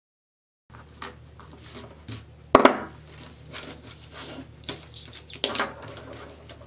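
Hands rolling and scrunching stiff poly deco mesh on a cutting mat: scratchy rustling and crinkling, starting under a second in. There are two louder bursts of handling noise, one about two and a half seconds in and one about five and a half seconds in.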